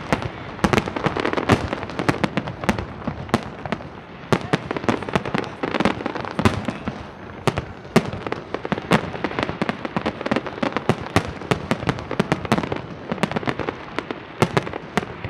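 Aerial fireworks display: a dense, continuous barrage of shell bursts, booms and crackling, with many sharp bangs overlapping.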